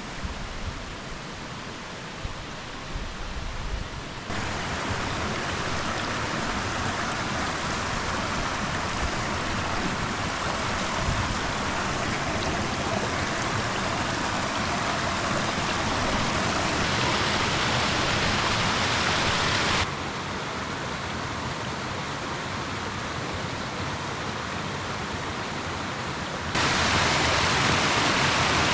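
Rushing water of a waterfall and mountain stream, a steady hiss. It gets louder and brighter abruptly about 4 seconds in, drops about 20 seconds in, and jumps up again near the end.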